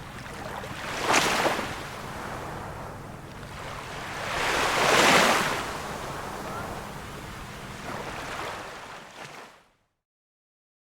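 Gentle sea waves washing in, with three swells: one about a second in, a bigger, louder one around five seconds, and a smaller one near eight seconds. The sound then fades out to silence near the end.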